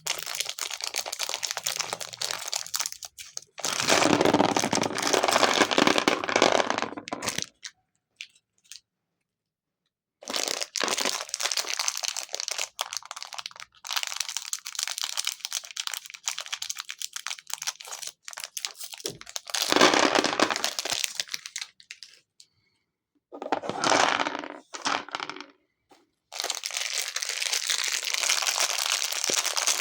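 Packaging crinkling and crackling as the dice are unwrapped by hand, in several stretches a few seconds long with short pauses between them.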